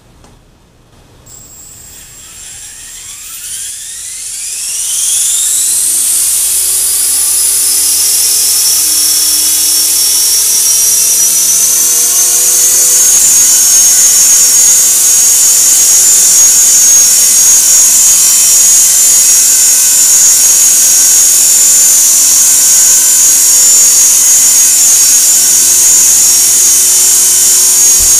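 EXI 450 electric RC helicopter spooling up: the motor and gear whine rises in pitch over the first five seconds or so. It then holds as a steady high whine at flying head speed, growing a little louder about twelve seconds in.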